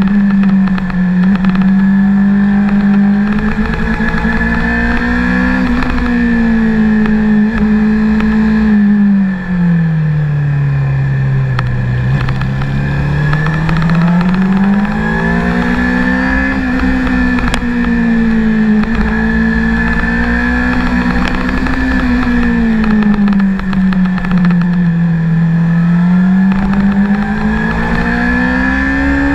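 Honda CBR600RR's inline-four engine under way, heard from on board, its revs rising and falling smoothly as the rider throttles through a series of bends. The pitch sinks lowest about ten seconds in, then climbs again, over a steady low rush.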